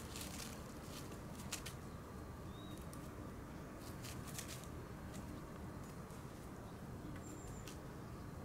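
Shiba Inu mother and her puppy scuffling on dry grass and fallen leaves: soft rustling and scattered light clicks of paws. Two short, high bird chirps, about two and a half and seven seconds in.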